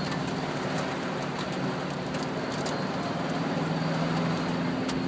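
Heavy rain falling on a car's roof and windscreen, heard from inside the cabin, with scattered sharp ticks of drops and the car's engine humming steadily underneath.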